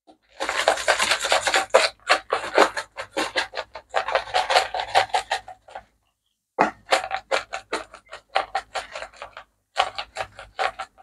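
Plastic spice shaker of garlic powder shaken hard in quick, even strokes, a rapid rasping rattle. Two long runs of shaking with a short break about six seconds in, then a brief last burst near the end.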